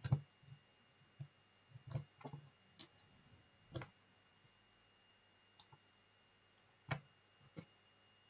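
Scattered light clicks and taps of hands handling a small plastic robot-car chassis, its battery pack and jumper-wire connectors, the sharpest right at the start and about seven seconds in. A faint steady high tone runs underneath.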